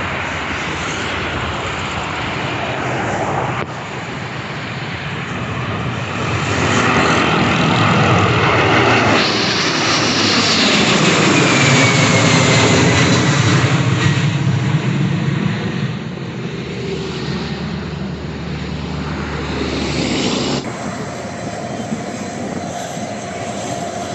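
Airplane engines passing by: the noise swells to a peak about halfway through, with a high whine that falls in pitch as the aircraft goes past, then eases off.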